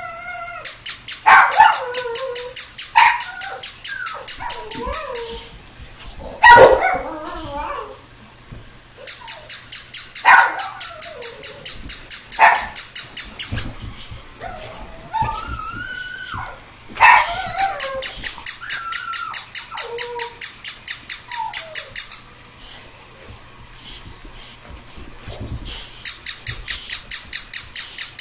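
A dog barking sharply a few times and whining at a small battery-operated toy puppy, which yaps back in long runs of rapid, high-pitched electronic yips, several a second, stopping and starting again.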